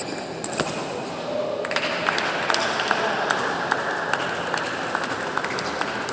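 Sharp ball strikes of a match rally, two or three crisp taps a second, over the murmur of a hall.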